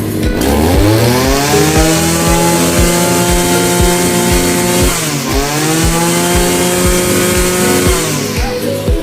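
Husqvarna 541RS brush cutter's two-stroke engine revved from idle up to high revs, held there, dipping briefly and picking up again about five seconds in, then easing off near the end.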